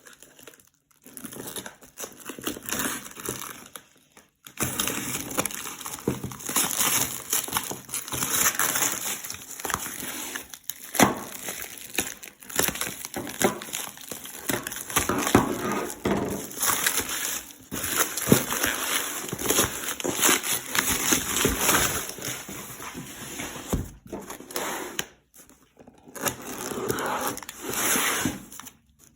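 Packaging being handled and opened by hand: continuous crinkling and rustling of wrapping with small clicks and scrapes, pausing briefly a few seconds in and again near the end.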